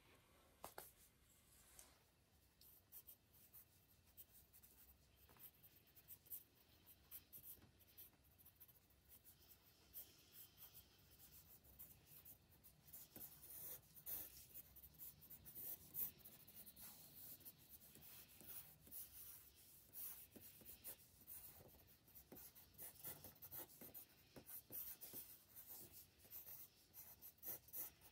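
Faint scratching of a drawing tool on paper in quick, short sketching strokes. The strokes are sparse at first and come thick and fast from about a third of the way in.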